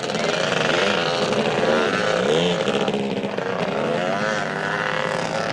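Off-road ATV engine running under load while being ridden. Its pitch rises and falls several times as the throttle is opened and eased off.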